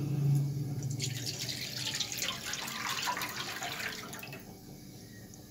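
Full-cream milk poured from a plastic bowl into a non-stick pan, splashing steadily and fading out about four and a half seconds in. A low hum sounds in the first second.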